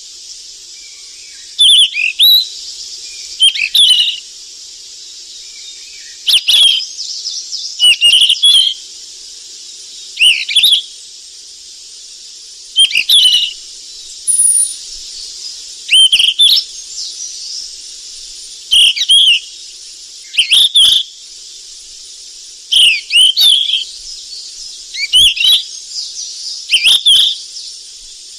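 Sikatan emas (golden flycatcher) singing: short phrases of quick, sweeping whistled notes, repeated about every two seconds over a steady high hiss.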